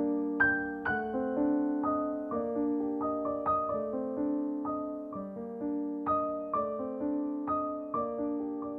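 Background piano music: notes and chords struck about two a second, each ringing on and fading away.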